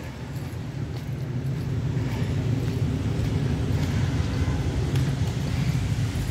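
Low rumble of road traffic on a wet city street, building about a second in and easing off near the end.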